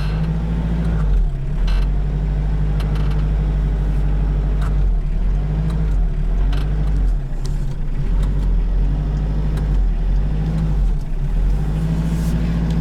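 Hyundai Porter light truck's engine running as it drives, a steady low drone that dips briefly a few times.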